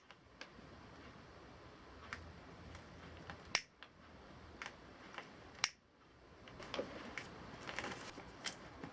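Scattered light clicks and taps from handling a leather boot and hand-sewing tools during a stitching repair. Two sharper clicks come about three and a half and five and a half seconds in, with a quicker run of small clicks near the end.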